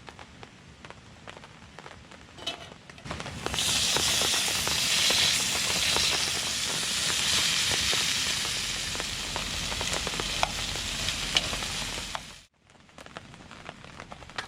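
Food frying, a loud sizzle with many small pops and crackles that starts about three seconds in and cuts off abruptly near the end.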